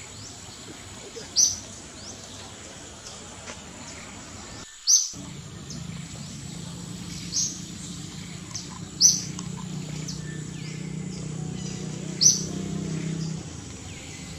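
A bird calling in forest with short, sharp, high chirps about every two to three seconds, over a steady background of forest sound. A low steady hum comes in about a third of the way through and stops near the end.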